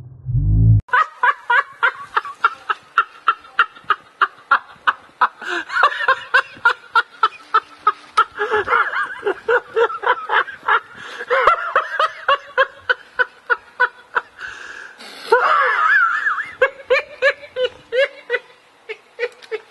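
A person laughing hard in long runs of short snickering pulses, about four a second, breaking off briefly near the end and then laughing on. A low rumble in the first second cuts off suddenly.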